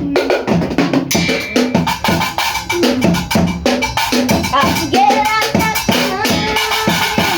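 Band music for São João with a drum kit beating steadily under pitched instruments.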